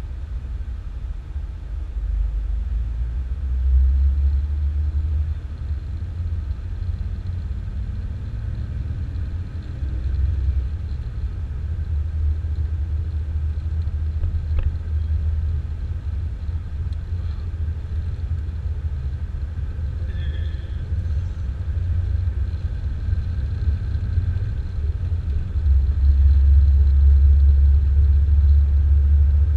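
Low, steady rumble of a Jeep's engine and road noise heard from inside the moving vehicle, swelling briefly now and then and growing louder near the end as it picks up speed.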